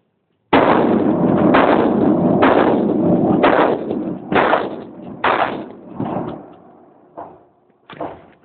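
12-gauge shotgun firing, a string of loud shots about a second apart, the first about half a second in and the later ones weaker.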